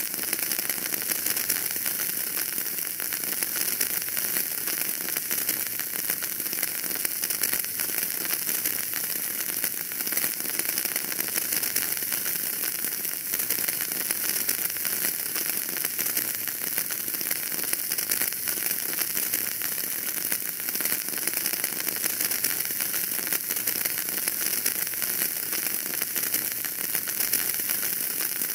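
Wood fire burning in a fireplace, crackling steadily: a continuous hiss thick with small pops and crackles, with no single loud snap standing out.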